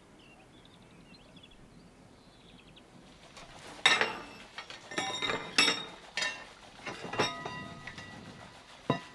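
Metal cookware clanking and clinking: about seven sharp knocks, each with a short metallic ring, over the last five seconds. Faint bird chirps come before them in the quiet first few seconds.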